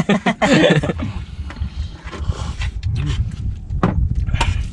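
A low, uneven rumble with a few sharp knocks near the end, after a brief voice in the first second.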